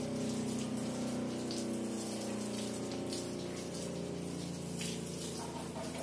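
Running water from a hose splashing over a motorcycle being rinsed with plain water to wash off caked mud, a steady flow with a constant hum underneath.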